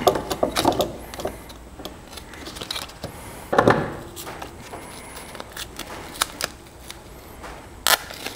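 Hands handling a black sheet and a roll of heat-resistant tape: small crinkles and clicks, with a louder rasp about three and a half seconds in as tape is pulled and pressed on, and a sharp click near the end.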